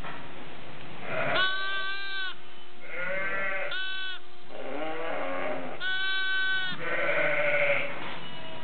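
Newborn lambs bleating: a string of about six high-pitched bleats, some clear and held for most of a second, others rougher and wavering.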